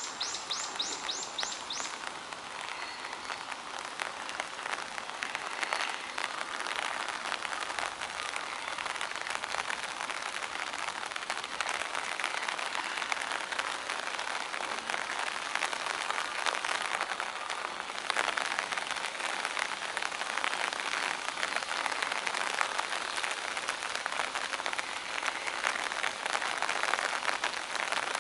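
Steady rain pattering, a dense crackle of fine drops without a break. Near the start a rapid run of about seven high chirps sounds over it.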